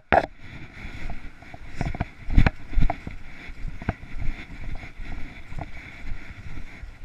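Irregular footsteps and thumps of someone walking through dry grass, leaves and brush, with the body-worn camera jostling and wind rumbling on the microphone.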